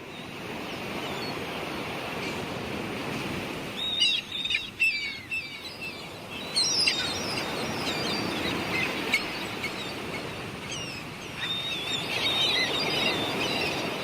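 Clusters of short high chirps and whistles over a steady wash of sea noise, with a few sharp clicks about four seconds in.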